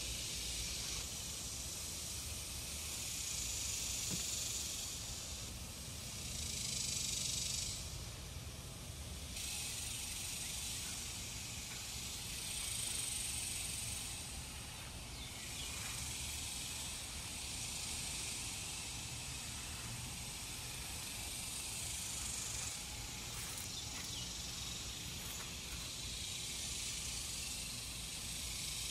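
Steady high hiss of outdoor background noise, swelling and fading every few seconds over a faint low rumble.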